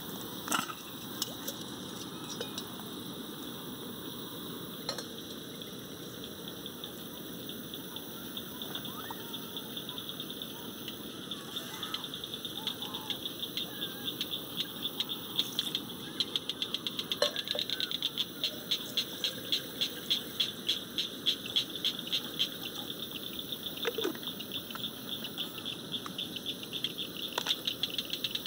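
Insects chirping in a fast, even pulsing chorus that grows louder from about halfway through, over a low steady rushing noise. A few sharp clicks and knocks come through it, near the start and again in the middle.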